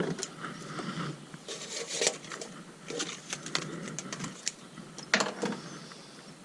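Scissors snipping and plastic wrapping crinkling, a string of irregular sharp clicks and crackles as a new motorcycle tyre is cut out of its packaging.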